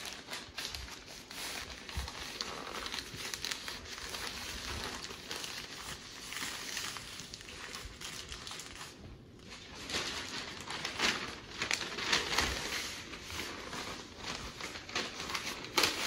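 Newspaper rustling and crinkling as it is folded and wrapped tightly by hand around a package, with a short lull about nine seconds in and louder crinkling after it.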